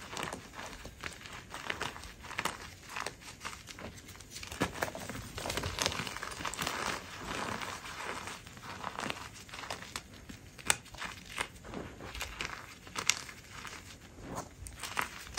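Hands crushing and squeezing chunks of gym chalk in loose powder: soft, irregular crunching and crumbling, with scattered sharper crackles as pieces break apart.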